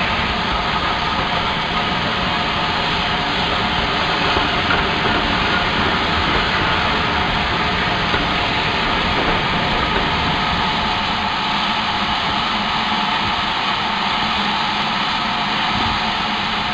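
Steady hiss and rumble of the LMS Black Five steam locomotive 44767 standing at a station, with no chuffing beat.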